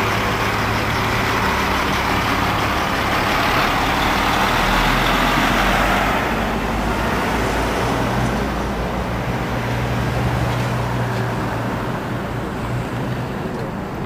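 Semi truck driving past close by, its diesel engine and tyre noise loudest over the first six seconds and then fading, with other road traffic following.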